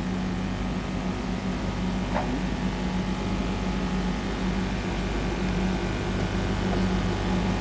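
Steady low droning hum with an even hiss of noise over it, unchanging throughout.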